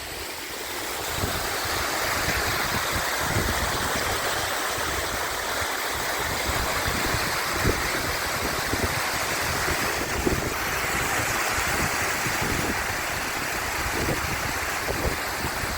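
Waterfall rushing steadily in heavy winter flow, with wind gusting irregularly on the microphone.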